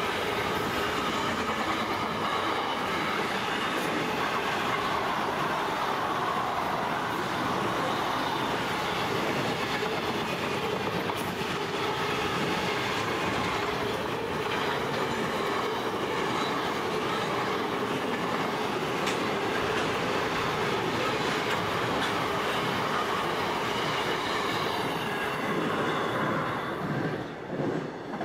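Container wagons of a long intermodal freight train rolling past at speed: a steady rumble of steel wheels on the rails. It thins and breaks up as the last wagons go by near the end.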